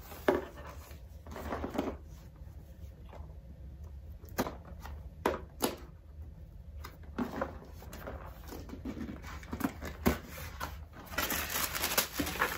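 A cardboard candy box being opened and its contents handled: scattered taps, clicks and crinkles of packaging, with paper rustling near the end as a booklet is leafed through.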